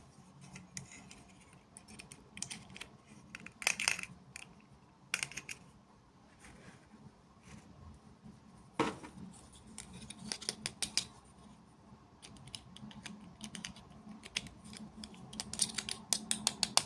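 Small plastic toy pieces and packaging being handled and opened by hand: scattered sharp clicks, taps and rustles, with a quick run of clicks near the end.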